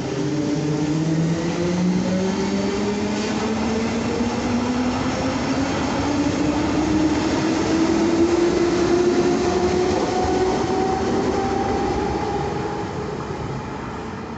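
Berlin S-Bahn class 485 electric train pulling along a platform, its traction motors giving a whine that climbs steadily in pitch as it picks up speed, over wheel-on-rail rumble. The sound fades in the last few seconds.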